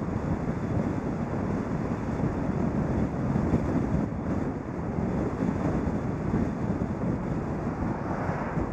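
Steady wind rush on the microphone of a camera mounted on a moving car, mixed with tyre and road noise; no engine note stands out.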